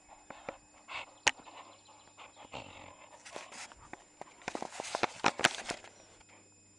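A young American Staffordshire terrier playing tug with a fabric tug toy at close range: irregular sharp clicks and short scuffling bursts, thickest about four to six seconds in.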